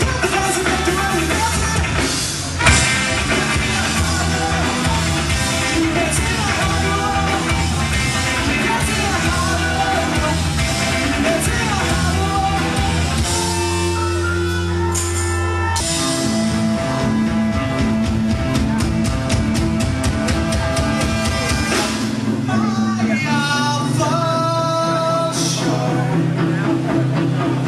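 Rock band playing a song with a drum kit and singing, the drumming turning very rapid for several seconds past the middle.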